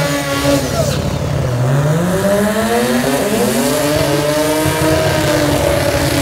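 Drag car's engine revving hard during a burnout while its rear tyres spin and smoke. The pitch climbs steeply over about a second, then rises and falls as the throttle is worked.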